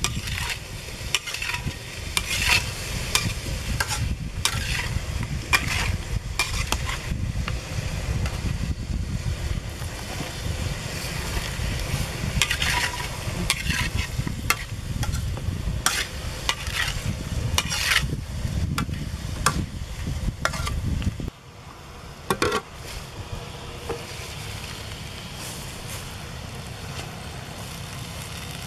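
A metal spatula scraping and clanking against a steel wok as catfish pieces stir-fry and sizzle in hot oil. The clatter stops suddenly about two-thirds of the way in, leaving one more knock and a quieter steady background.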